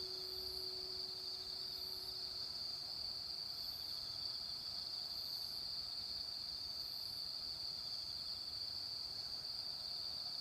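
Insects trilling steadily, with a faint high chirp repeating about every second and a half. The hum of a recorded temple-bell stroke from a municipal outdoor loudspeaker dies away over the first two seconds or so.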